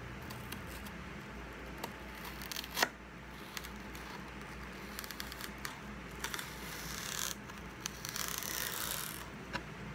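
Chef's knife slicing lengthwise through a celery stalk on a cutting board: crisp crackling and tearing of the fibres, with a sharp click about three seconds in and a longer crunchy stretch near the end.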